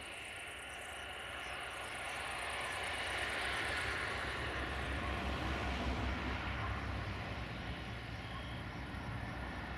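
Rumble of a passing vehicle that swells to a peak about four seconds in and then eases off, with a low drone underneath.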